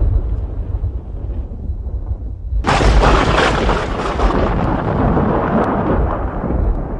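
Thunder: a deep low rumble, then about two and a half seconds in a sudden sharp thunderclap that crackles and slowly rolls away.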